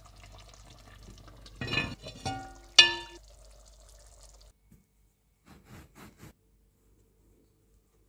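A pot of curry simmering and being stirred, with a low steady hiss that stops about four and a half seconds in. Two sharp clinks of cookware come about two and three seconds in, the second ringing briefly.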